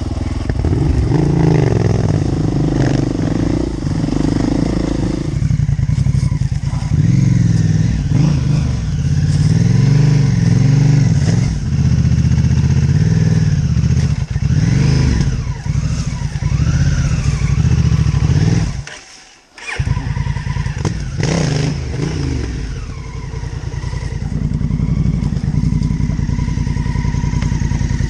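Enduro motorcycle engine running over trail riding, its pitch rising and falling with the throttle. About two-thirds of the way through it drops away for under a second, then picks up again.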